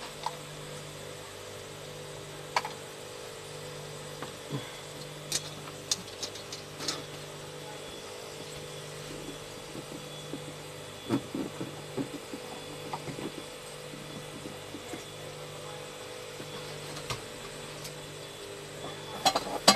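Scattered light clicks and knocks of an inverter's circuit board and aluminium heatsink being handled and lifted on a workbench. Underneath is a steady electrical hum, with a low tone that cuts in and out every couple of seconds.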